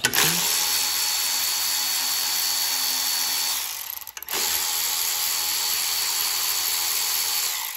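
Power drill spinning a 5/16-inch deep socket to back out the carburetor mounting studs: two steady whirring runs of about three seconds each, one per stud, with a short pause just before halfway.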